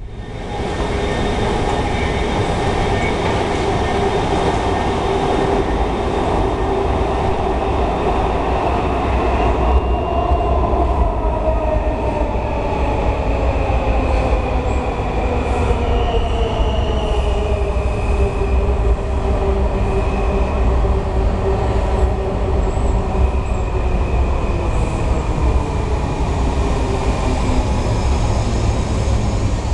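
Washington Metro Yellow Line train pulling into an underground station with a steady, heavy rumble of wheels on rail. From about a third of the way in, the propulsion whine falls in pitch as the train brakes toward a stop.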